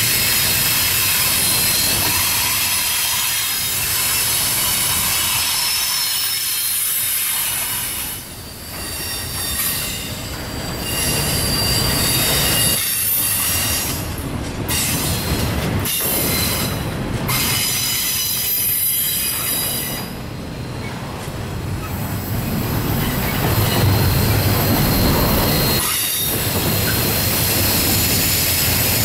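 Double-stack intermodal well cars of a Norfolk Southern freight train rolling past, the wheels squealing in several steady high tones over the continuous noise of wheels on rail. The level dips briefly a few times.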